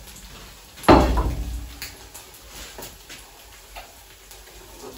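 A single heavy clunk about a second in as kitchenware is set down on a wooden worktop, followed by a few light clicks and taps of a metal utensil working in a non-stick frying pan.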